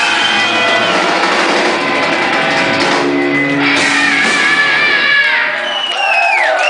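Live rock band playing with guitars. About five seconds in the low end drops away, leaving high sliding squealing tones as the song winds down.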